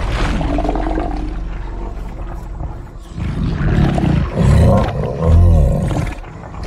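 Film sound-effect roars of giant monsters: deep growling roars that swell into loud, drawn-out bellows in the second half, over a low film score.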